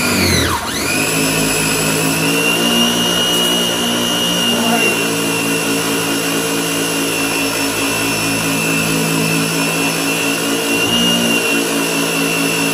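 Electric pressure washer motor and pump kicking on by its automatic start-stop as the gun's trigger is pulled, settling within the first second, then running steadily under load while the 25-degree nozzle sprays a hissing jet of water.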